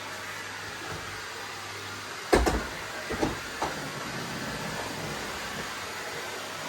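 Vacuum cleaner running with a steady hum, with a sharp knock a little over two seconds in and two lighter knocks about a second later.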